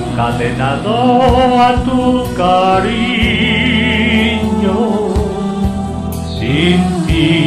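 Music: a wavering melody, sung with vibrato, over an instrumental backing with steady bass notes.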